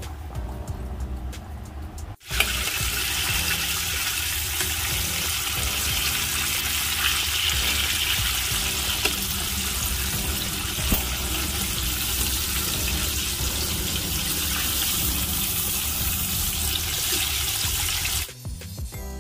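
Chicken pieces deep-frying in a pot of hot oil: a loud, steady sizzle that starts abruptly about two seconds in and cuts off shortly before the end. Soft background music plays under it.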